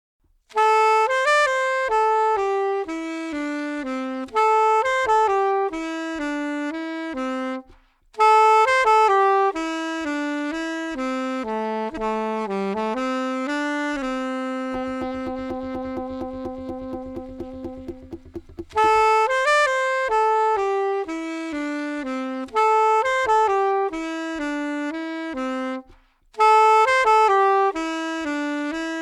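Saxophone playing a slow melody in phrases, with short breaks between them and one long held note about halfway through.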